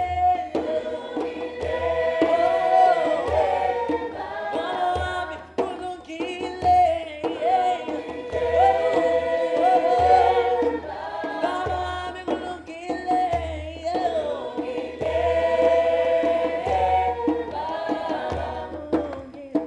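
A group of voices singing together in harmony, with djembe hand drums struck along with the song.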